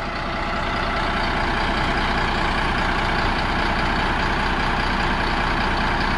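Cat D6H bulldozer's six-cylinder diesel engine running steadily, swelling a little over the first second and then holding level.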